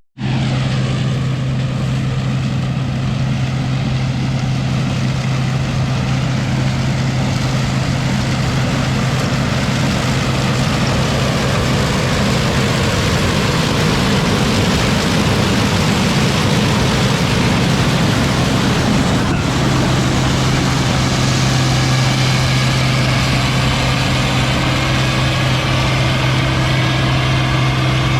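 A vehicle engine running steadily, a constant low hum with no change in speed.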